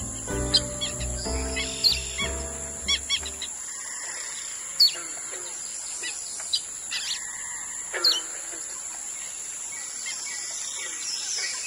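Wild birds calling, with short sharp chirps scattered throughout over a steady high-pitched hiss. Background music plays under them for the first three seconds or so and then stops.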